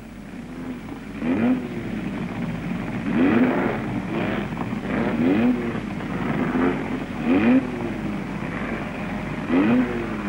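Racing car engine revved in short blips over a steady running note, its pitch swelling up and dropping back every second or two.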